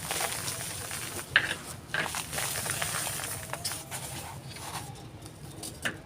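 A dry, brittle texture being crumbled and crushed by hand, giving irregular crackles and crunches with a few sharper snaps.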